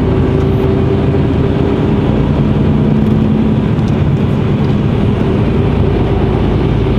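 Mercedes-Benz Actros truck driving at motorway speed, heard from the cab: a steady diesel engine drone under tyre and road noise.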